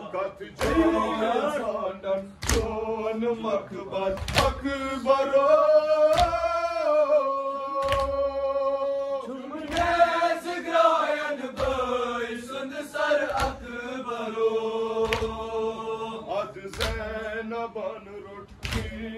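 Men chanting a Kashmiri noha, a lead voice holding long, wavering lines with the group joining in, while hands strike chests together in a steady beat about once every two seconds, the matam that keeps time with the lament.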